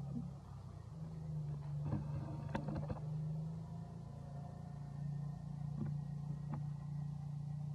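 A steady low motor hum, with a cluster of short clicks or rustles about two to three seconds in and two single ticks later.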